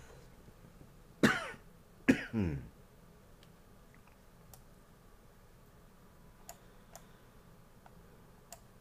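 A man clears his throat in short bursts, once about a second in and twice more just after two seconds. A few faint clicks follow, like a computer mouse being clicked.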